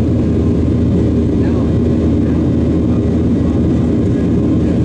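Steady cabin noise of a Boeing 737-700's CFM56-7B jet engines at climb power shortly after takeoff, heard inside the cabin beside the wing: a loud, even, low-pitched rumble.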